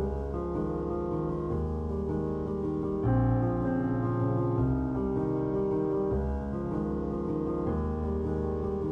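Background piano music: slow sustained chords changing every second or two, swelling a little louder about three seconds in.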